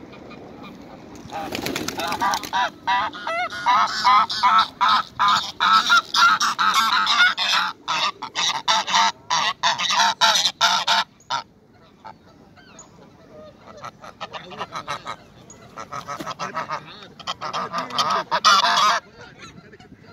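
Greylag geese honking in a rapid, nearly continuous run of loud calls for about ten seconds. After that come fewer, quieter honks, with a louder burst near the end.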